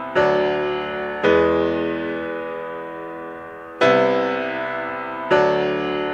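Background music: slow chords, four in all, each struck and left to ring and fade before the next.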